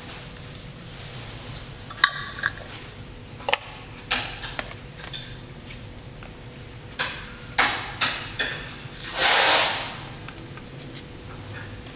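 Sharp clinks and taps of a metal measuring cup and spoon against a stainless steel mixing bowl and ingredient containers while flour and baking powder are measured out, with a longer, louder scraping rustle about nine seconds in.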